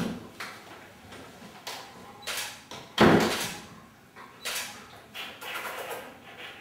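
Irregular short clicks and knocks, the loudest a heavier knock about three seconds in, with a quick run of fine clicks near the end.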